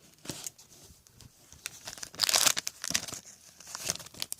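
A trading-card pack wrapper being torn open and crinkled by hand, in irregular rustles, loudest a little past two seconds in.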